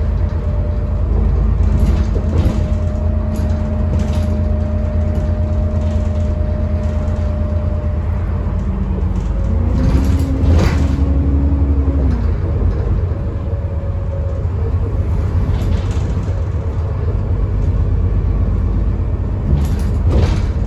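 Alexander Dennis Enviro400 double-decker bus heard from inside the passenger saloon while driving: a steady low engine and road rumble with a humming drone. About ten seconds in, a whine rises in pitch, holds for a couple of seconds and drops away, with occasional light rattles from the interior.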